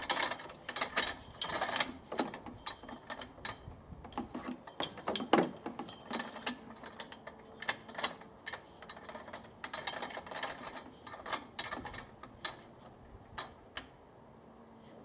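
Irregular metallic clicks and clinks of hardware being handled, the metal clamp fittings on an antenna mast, coming thick at first and thinning out towards the end.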